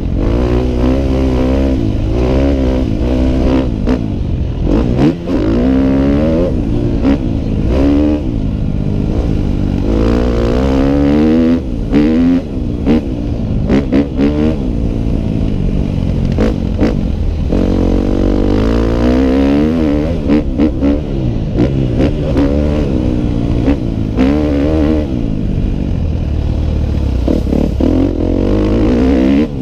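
Dirt bike engine heard from on board, revving up and falling away again and again as the bike accelerates, shifts and rolls off over a dirt track, with occasional clattering knocks.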